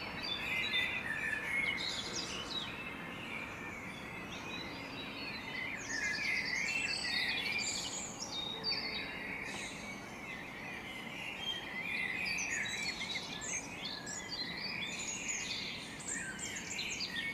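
Dawn chorus of blackbirds: many overlapping chirps and song phrases over a steady background hiss.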